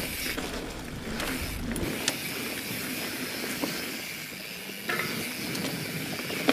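Mountain bike rear freewheel hub buzzing steadily as the bike coasts, over the noise of tyres rolling on a dirt trail, with a few sharp knocks from bumps, the loudest about two seconds in and near five seconds.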